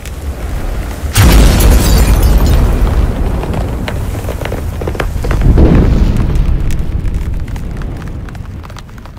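Cinematic logo-intro sound effect: a deep boom hits about a second in and carries on as a rumble with scattered crackles, swells again around five and a half seconds, then fades.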